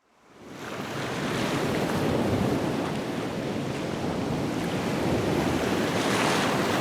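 Ocean surf: a steady wash of breaking waves fading in from silence, with a wave surging up about six seconds in.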